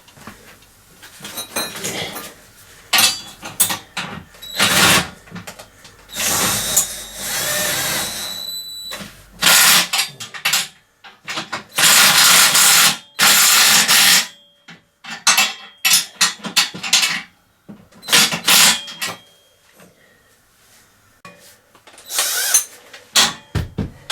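Impact gun running in a series of short bursts, tightening nuts onto 19 mm bolts, with short clicks and knocks of metal between the bursts.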